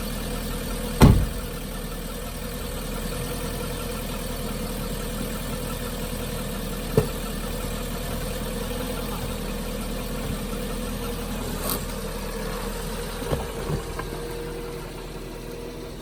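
Car engine running slowly as the car rolls over a pair of shoes, with a loud thump about a second in and a smaller one about seven seconds in.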